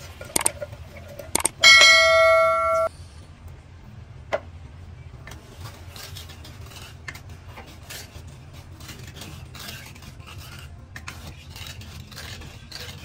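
Two clicks and then a loud bell-like ding lasting just over a second, about two seconds in: the sound effect of a like-and-subscribe button animation. After it, a wooden spatula scrapes and taps against a non-stick frying pan as coconut milk is stirred while it simmers down to make latik.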